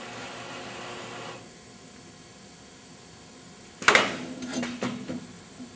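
The conformal coat dispenser's steady running noise stops about a second and a half in as the program is halted. About four seconds in there is a single sharp knock, followed by a few softer clicks.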